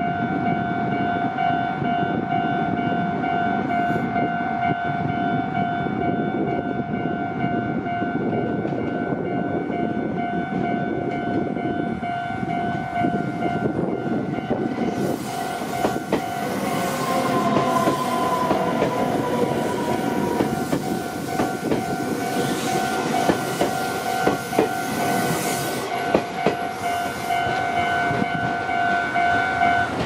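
Japanese level-crossing warning bell ringing with a steady repeating electronic ding, cutting off at the very end. From about fifteen seconds in, a Meitetsu 3700-series electric train passes for about ten seconds, with wheels clicking over the rail joints, a high hiss and a brief falling whine.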